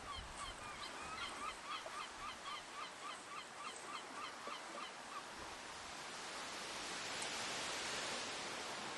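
A bird calling in a rapid series of short, honking notes, about three or four a second, that stops about five seconds in. After that, a steady hiss of noise swells and eases off.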